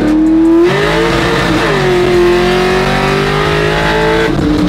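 Pickup truck's engine heard from inside the cab. It is pulled hard under heavy throttle from about a second in: the revs climb, dip briefly, then climb again. The throttle lifts shortly before the end.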